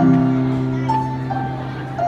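Solo upright piano: a low chord struck at the start and left to ring and fade, with two higher melody notes played over it about a second in.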